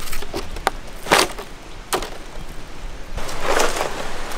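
Knife scraping and cutting at a whole fish to scale it, about six quick, irregular strokes, the last and longest about three seconds in.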